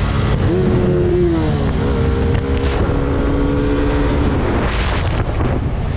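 Bajaj Pulsar RS200 single-cylinder motorcycle engine running at road speed, its pitch rising about half a second in, easing back, holding steady and then dropping near the end. Heavy wind noise on the microphone.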